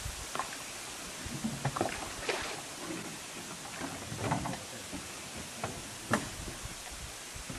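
Steady watery hiss with scattered light knocks and clicks.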